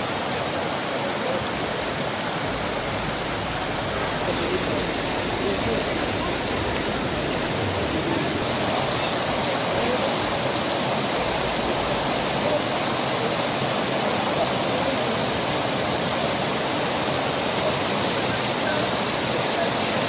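Mountain waterfall and its snowmelt stream rushing over rocks: a steady, unbroken roar of water.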